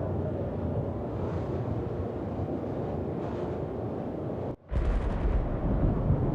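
Wind buffeting the microphone as a steady low rumble. It drops out abruptly for a split second a little past halfway, then returns louder.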